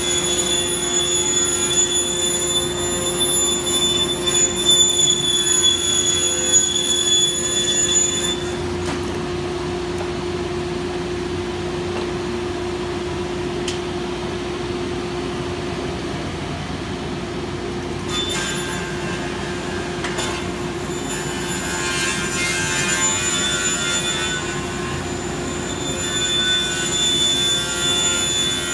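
Striebig vertical panel saw running with a high-pitched whine. The whine cuts off about eight seconds in, leaving a steady lower hum. The saw whines again from about eighteen seconds in, loudest near the end.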